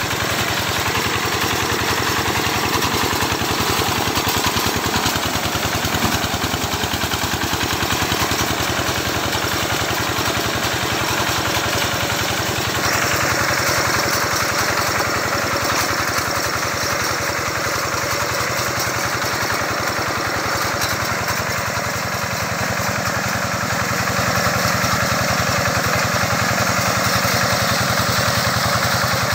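Engine of a homemade grass-cutting machine built on a car differential, running steadily as the machine drives through tall grass, with a fast, even firing beat.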